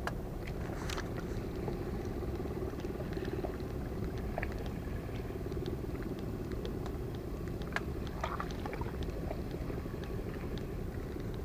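Steady low rumble of wind and water at a seawall, with a faint steady hum through the first half and scattered light clicks.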